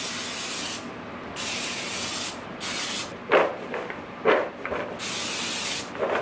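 Aerosol cooking-oil spray hissing in three bursts of about a second each onto cubed sweet potatoes in a bowl. Between the second and third bursts the potato cubes knock around the bowl as it is tossed.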